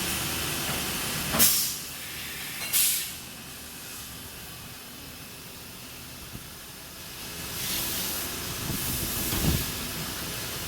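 CNC milling machine working an aluminium alloy scooter deck: steady machine noise with short bursts of high hiss about one and a half and three seconds in, and a longer, louder stretch of hiss from about seven and a half to nine and a half seconds.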